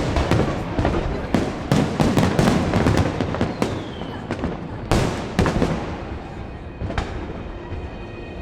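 Fireworks bursting overhead: a rapid, dense crackle of sharp bangs and pops, with a loud bang about five seconds in and the bursts thinning out toward the end.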